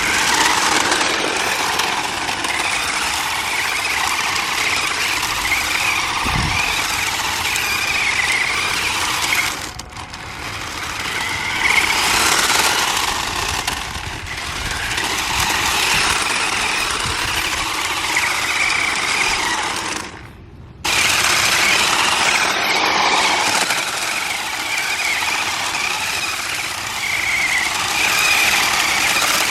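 Remote-control drift car running: its small electric motor whines with a wavering pitch over a rushing hiss of the wheels. The sound eases off about ten seconds in and cuts out for a moment about twenty seconds in.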